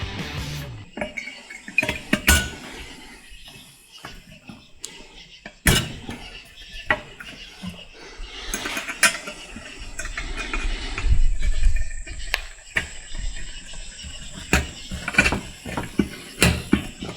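Metal transmission parts being handled on a workbench: scattered clinks, taps and knocks of parts set down and fitted, with a brief low rumble about eleven seconds in.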